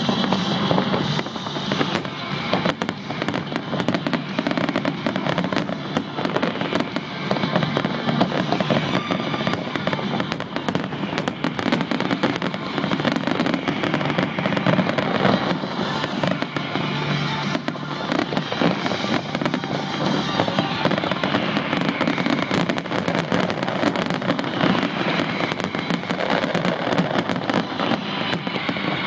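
Finale barrage of aerial fireworks: many shells bursting and crackling at once, the bangs packed so close together that they run into one another.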